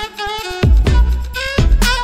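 Background electronic music with a heavy bass-drum beat under a pitched synth melody.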